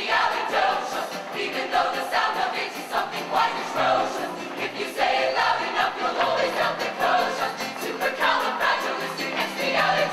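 A high-school show choir singing together over instrumental accompaniment.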